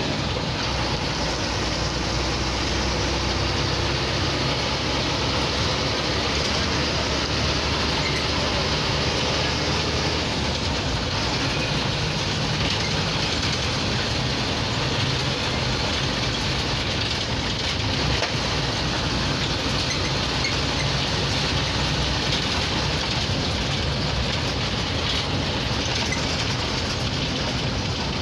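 Cabin noise of a State Transport bus on the move: its engine running steadily under the road and body noise, with the engine note changing about ten seconds in.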